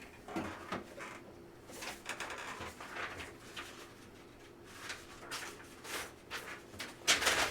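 Faint scattered clicks and rustles of light handling, a few soft taps a second or so apart, over a low steady hum.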